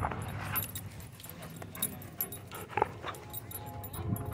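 A dog at close range playing tug with a rope toy: scattered short clicks and rustles, with a faint whine about three seconds in.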